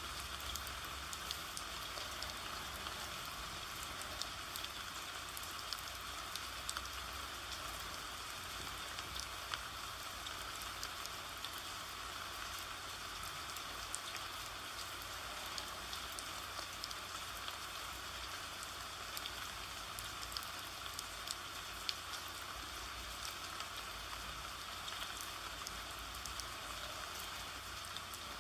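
Steady rain falling, with scattered sharp ticks of single drops hitting a surface.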